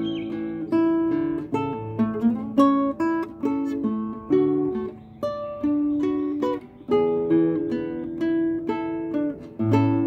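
Classical nylon-string guitar played solo and fingerpicked: a melody of single plucked notes ringing over lower bass notes.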